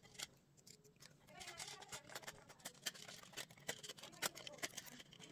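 Light clicks and taps of small plastic toy pieces being handled and fitted together, with faint murmuring.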